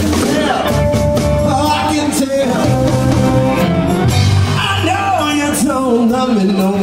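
Live blues band playing a song: electric guitar, keyboard and bass with a sung lead vocal line that bends in pitch.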